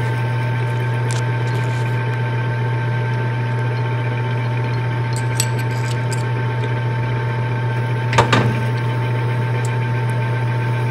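Metal lathe running steadily with a low motor hum and a thin whine while a 5/16-inch drill bit in the tailstock chuck bores into a Fox shock part, drilling the hole for a 1/8-inch MPT tap. A brief louder scrape a little after eight seconds.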